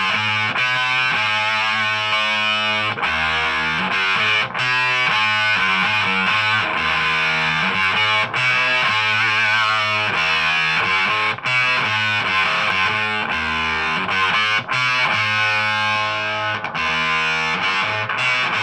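Distorted electric guitar played through an amp: a 2012 Epiphone Les Paul Standard goldtop with a Hosco wiring kit and stock pickups, into a Marshall Origin 20 head and a Harley Benton 2x12 cabinet. It plays chords and riffs that change every second or so, with a few brief stops between phrases.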